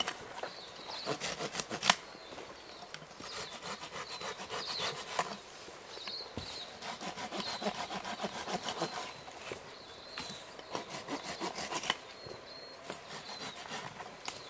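Small handsaw cutting through a green radiata pine branch in quick, even back-and-forth strokes, in runs with short pauses between them.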